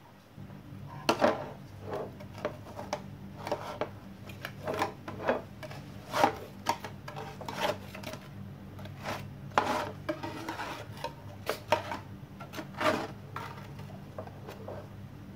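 A steel kitchen knife scraping and knocking against a stainless steel tray as pieces of coconut burfi are slid loose and lifted out, in irregular short scrapes and clicks, over a steady low hum.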